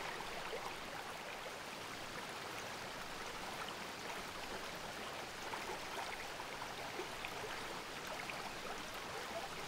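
Steady rush of flowing creek water, with faint scattered drips and splashes.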